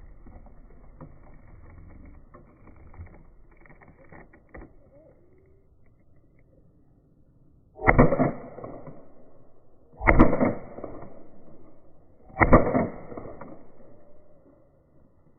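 Airsoft gun being handled: faint clicks and handling noises, then three loud, sharp reports about two to two and a half seconds apart, each fading over about half a second.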